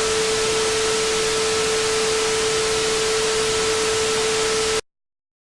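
Radio static: a loud, steady hiss with a steady mid-pitched tone running through it, cutting off abruptly into dead silence near the end, like a station's signal dropping off the air.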